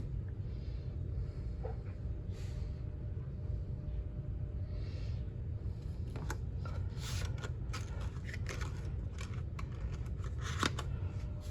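Cardboard box of 9mm ammunition being handled: a run of clicks and rustles in the second half, over a steady low hum.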